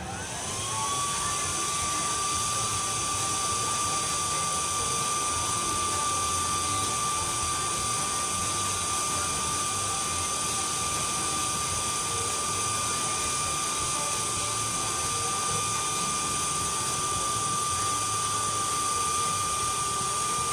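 Bolt Buster II handheld induction heater running a heat cycle on a seized, rusted-on nut: a steady high whine that rises into pitch in the first second and then holds, over a steady hiss.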